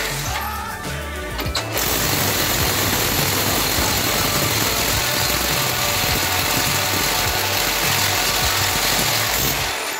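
Handheld electric drill running under load as it bores into the arch window frame. It stops briefly about a second in, then runs steadily until near the end.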